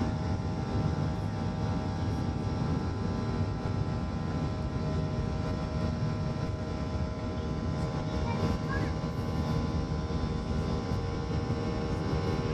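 Boeing 737-800 jet engines running, heard from inside the passenger cabin: a steady rumble with several steady whining tones over it.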